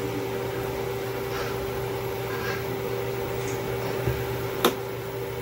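Portable electric cooktop running with a steady hum, its cooling fan and power electronics heating the pan. A single sharp click near the end.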